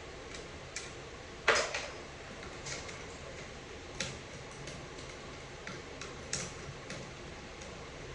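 Irregular metallic clicks and clinks of hand tools and bolts on a transmission valve body being unbolted, with the loudest clink about a second and a half in.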